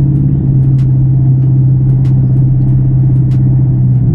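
2024 Ford Mustang GT's 5.0-litre V8 running at a steady cruise, a constant low drone heard from inside the cabin. A faint light tick repeats about every second and a quarter.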